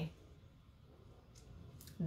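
Faint handling noise of a pair of brass finger cymbals (snujs) being worked in the fingers, with a couple of short clicks in the second half and no ringing.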